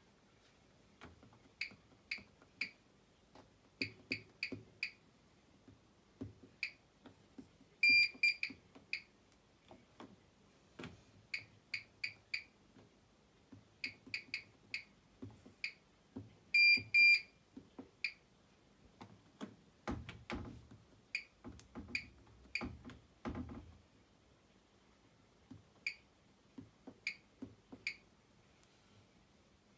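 Bosch WAN28281GB washing machine's control panel beeping as its controls are worked: many short, identical high beeps in small groups, with a longer double beep twice. Faint clicks run between the beeps, and a cluster of duller low knocks comes about two-thirds in.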